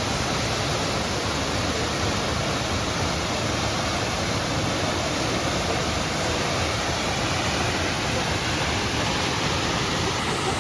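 Large waterfall: a steady, unbroken rush of falling water, loud and even across all pitches.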